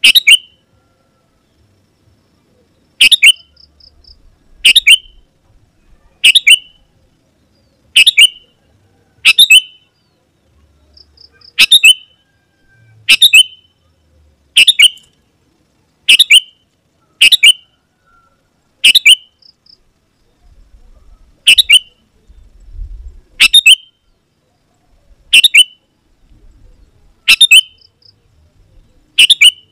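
Sooty-headed bulbul (kutilang) giving short, sharp calls, one about every one and a half seconds, some seventeen in all.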